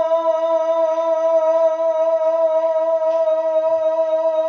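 A long held musical note with a steady lower note an octave below it, sustained between sung lines of a naat.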